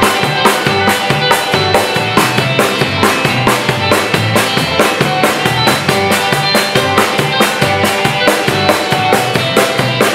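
Acoustic drum kit played with sticks in a steady, regular groove along with a full-band backing track.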